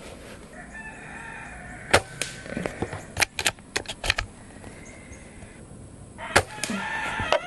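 Gamo Arrow .22 PCP air rifle firing two shots, one about two seconds in and one near the end, each a single sharp report. Between them comes a run of small metallic clicks as the bolt is cycled to load the next pellet.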